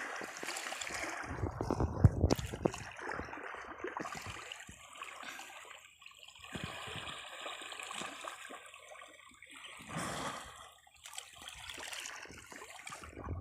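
Pond water splashing and gurgling around a bathing elephant as it moves in the water, in irregular sloshes, louder about two seconds in.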